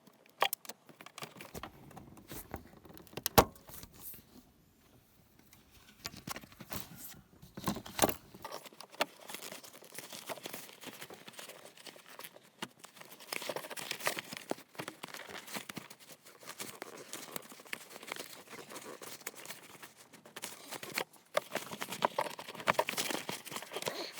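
Rustling, scraping and scattered clicks of hands and tools working a rubber fuel hose onto a metal fuel pipe, with a couple of sharper knocks in the first half.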